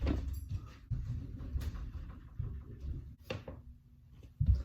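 Knocks and scrapes of a cardboard box being handled, with a dull thump near the end.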